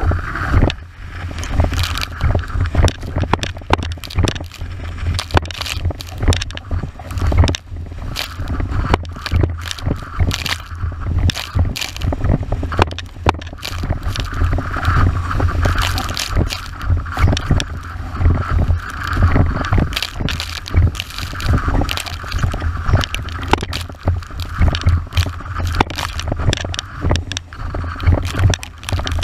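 An 81-litre windsurf wave board planing fast over chop: rushing spray hiss and the hull slapping the waves in quick, irregular knocks, over a steady low rumble of wind on the microphone.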